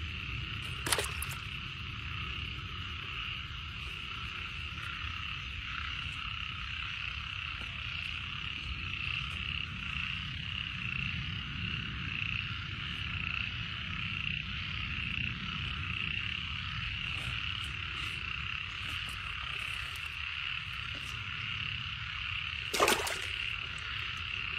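A dense chorus of frogs calling, steady throughout. Two sharp knocks cut through it, one about a second in and one near the end.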